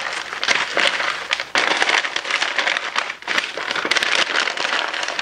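Pink butcher paper crinkling and crumpling with many small crackles as it is rolled and tucked around a rack of baby back ribs, with two brief lulls about one and a half and three seconds in.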